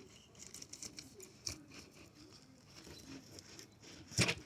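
Mustad fillet knife slicing along a redfish's backbone through scales and flesh: soft crackling, crunching cuts and scrapes, with one sharp knock near the end.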